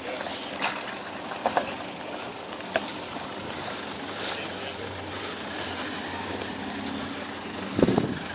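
Off-road 4x4 engines running low and steady as the vehicles crawl slowly over rock, with a few sharp knocks scattered through and a loud thump near the end.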